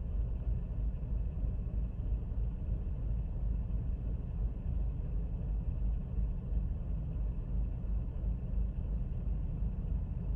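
Chevrolet Sonic's four-cylinder engine idling really rough and shaking, with a low, uneven rumble just after a cold restart following refuelling. This is the post-fill-up rough idle that the owner puts down to a failed evaporative emissions purge valve (code P0496) letting fuel vapour flood the intake.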